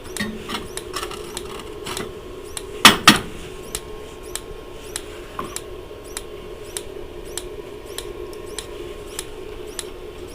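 Dometic Americana RV fridge's gas spark igniter snapping about every 0.6 s as it tries to light the propane burner, which does not catch. Two loud knocks about 3 s in, over a steady low hum.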